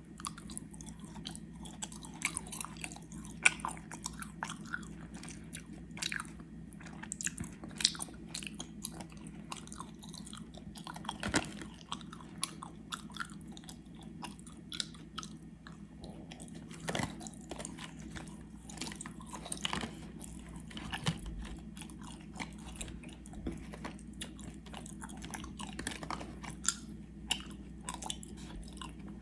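Close-miked chewing of gummy worms: wet, sticky mouth clicks and smacks, irregular and continuous, with a steady low hum underneath.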